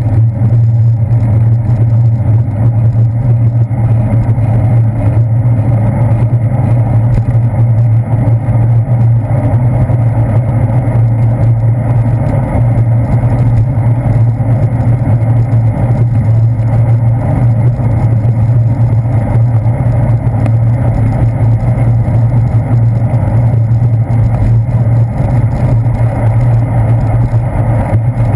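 Loud, steady low rumble of wind buffeting and road vibration picked up by a GoPro Hero 2 mounted on a bicycle's handlebars while riding along a paved path.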